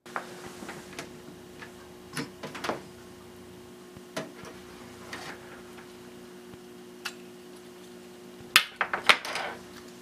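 Scattered clicks and knocks of a hard drive and its USB adapter cable being handled and unplugged, with a louder cluster of clatters near the end, over the steady hum of a running desktop computer.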